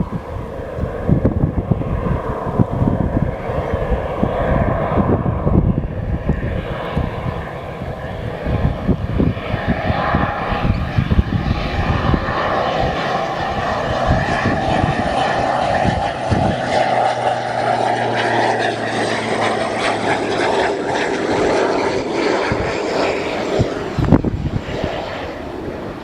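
Airliner engines passing an airport, growing louder through the middle and easing off near the end, with wind buffeting the microphone.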